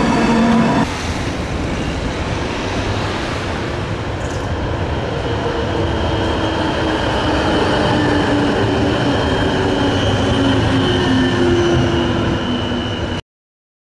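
Modern low-floor electric tram running along street tracks: steady rolling wheel-on-rail noise, with a high electric whine from the drive coming in about halfway and holding. The sound cuts off suddenly near the end.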